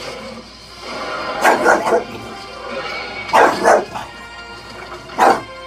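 English bulldog barking at a television, about five barks in two pairs and a single. The TV's music soundtrack plays steadily underneath.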